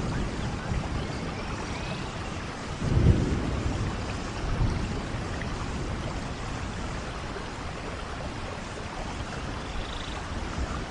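Steady rain falling on forest leaves and ground, with low rumbles swelling about three seconds in and again a little later.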